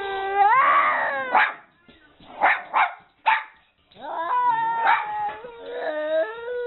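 Pet dog vocalizing in long drawn-out howls that step up and down in pitch, with three short barks in the middle, about two and a half to three and a half seconds in.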